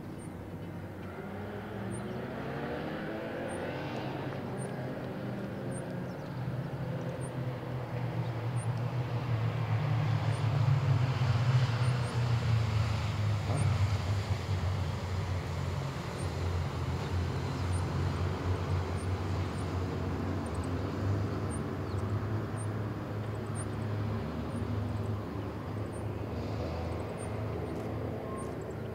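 Police motorcycles' engines running at low speed in a precision riding drill, heard from a distance, their pitch rising and falling as they are throttled, growing louder near the middle and then easing back.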